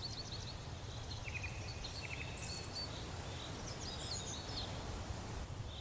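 Faint forest ambience: several birds chirping and trilling on and off over a low, steady rumble.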